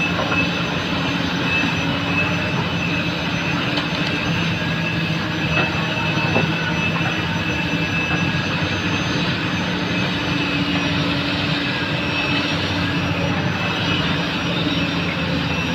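Komatsu PC200 excavator's diesel engine running steadily under working load, with a steady high whine over it and a few light knocks around the middle.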